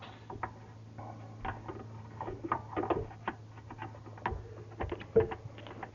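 Irregular small clicks, taps and knocks of hands handling and checking the dishwasher's hose fittings and clamps, over a steady low hum.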